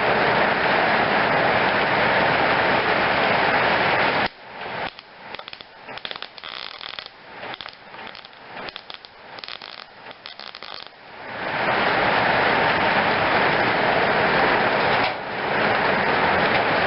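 Electric welder crackling steadily as an extension is welded onto a toy car's axle. It stops about four seconds in, leaving several seconds of faint clicks and ticks, then starts again near twelve seconds with a brief dip shortly after.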